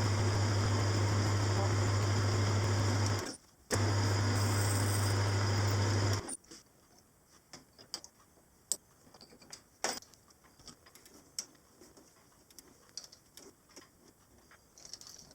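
Small machine-tool motor running with a steady hum for about three seconds, stopping for half a second, then running again for about two and a half seconds. Faint scattered clicks and taps follow.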